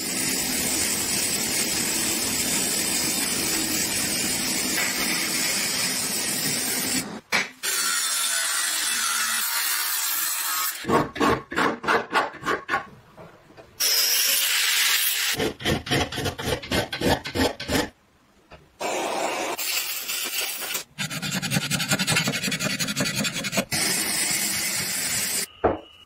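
A run of metal-restoration sounds: sandblasting hissing steadily against rusty cast iron for the first several seconds, then rhythmic rasping strokes. In the middle an angle grinder cuts steel in a short high hiss, and more stretches of strokes and steady abrasive noise follow.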